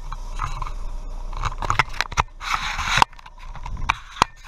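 Handling noise from a hand-held camera carried on the move: irregular knocks, rubs and scrapes, with a short hiss about two and a half seconds in.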